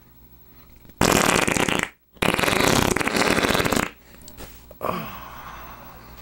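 Fart sounds: two long, loud farts, the second longer, then a fainter sputtering one that trails off near the end.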